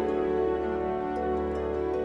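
Slow background music of long, held chords.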